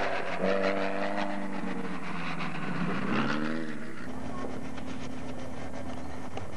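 Off-road race car engine running hard as the car passes close by, its pitch dipping and then climbing again about three seconds in. After that comes a steadier, lower engine drone.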